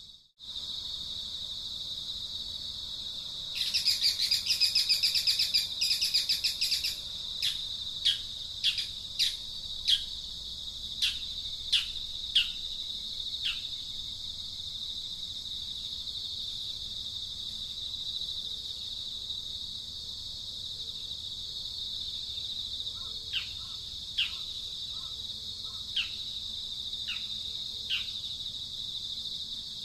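Steady, high-pitched insect drone, with a bird's loud rapid trill about four seconds in, followed by a run of sharp falling chirps, roughly two a second, and a few more spaced chirps near the end.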